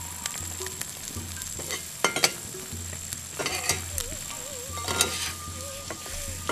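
An egg frying in butter in a very hot small cast-iron skillet, sizzling steadily. A metal spatula scrapes and taps against the pan a few times, around two, three and a half, and five seconds in.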